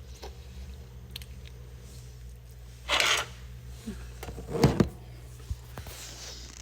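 Breath and mouth noises of a person biting a boil-and-bite anti-snoring mouthpiece into place. A sharp breath comes about three seconds in, then a short, louder muffled throat sound about a second and a half later, over a steady low hum.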